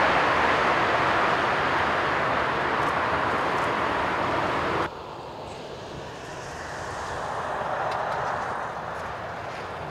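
Jet engine noise of an Airbus A380 on its landing rollout: a loud, steady rush that slowly fades, then breaks off suddenly about five seconds in. A quieter jet rumble from a four-engine airliner on final approach follows, swelling and then easing slightly near the end.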